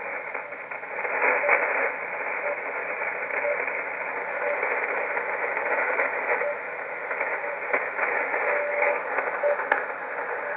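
Shortwave radio hiss and static from a receiver tuned to the RWM Moscow time-signal station, with a faint beep about once a second as the station's second pulses come through. One beep near nine seconds in lasts noticeably longer.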